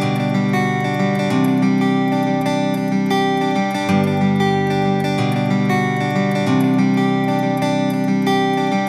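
Background music with a guitar playing sustained, plucked chords that change every couple of seconds.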